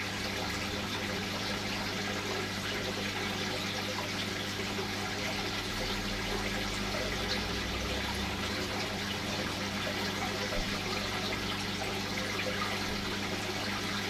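Aquarium water circulation: a steady rush of moving water with a low, steady hum underneath.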